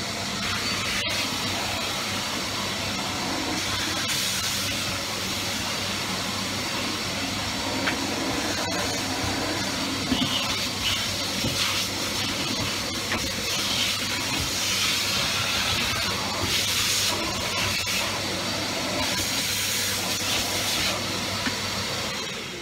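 Cylinder vacuum cleaner running, drawing air through its bare hose; a steady hum under a hiss that shifts and brightens now and then as the hose end is moved about. The sound starts to fall away right at the end.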